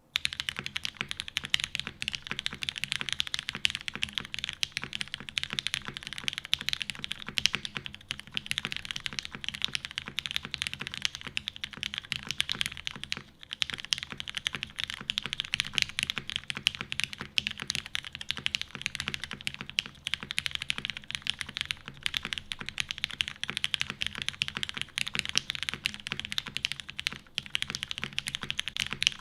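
Continuous fast typing on a custom mechanical keyboard with an aluminum plate, Cherry MX Black linear switches lubed with GHV4, and GMK keycaps: a dense stream of keystrokes with one short pause about 13 seconds in.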